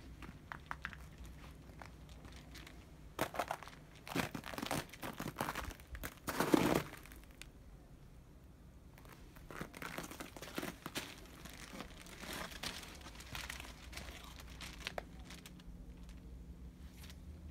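Crunching, crinkling steps on crusted snow, in two spells with a pause between, over a steady low hum.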